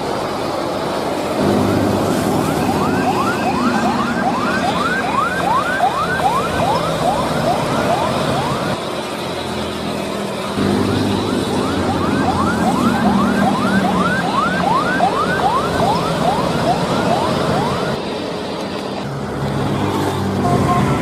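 A siren yelping: quick rising whoops, about three a second, in two runs of about six seconds each, over a steady low drone.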